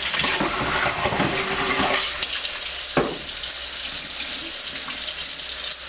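Bathtub faucet running steadily into the tub, with a single sharp knock about three seconds in.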